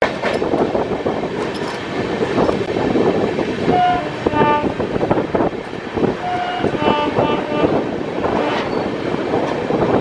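Passenger train running on the track with a steady rumble of wheels and wind. A locomotive's two-tone horn sounds twice, a short lower note followed by a higher note, about four seconds in and again about six and a half seconds in.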